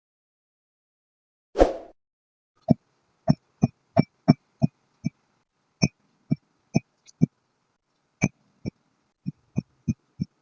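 Kinetic sand dropped and pressed: one longer soft thud about a second and a half in, then a quick, irregular run of short, dull thuds with dead silence between them.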